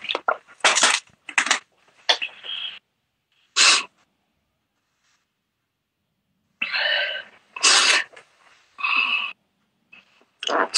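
A woman crying: short breathy sobs and sniffs in quick clusters, with a pause of about three seconds in the middle before another run of sobbing.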